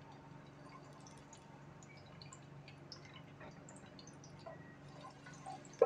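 Chopped garlic starting to fry in oil in a steel pot: faint, scattered little crackles and pops over a low steady hum, with one sharp knock at the very end.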